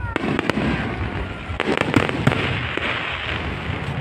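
Aerial fireworks going off: a string of sharp bangs, with a dense crackling stretch from about a second and a half in that lasts nearly two seconds.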